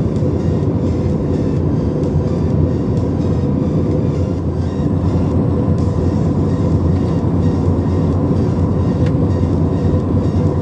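Steady drone of an Airbus A320's engines and rushing air, heard inside the passenger cabin in flight.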